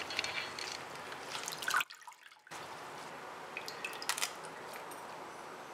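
Chicken soup boiling in an iron pot: faint bubbling and dripping, with a few small ticks and a brief dead-silent break about two seconds in.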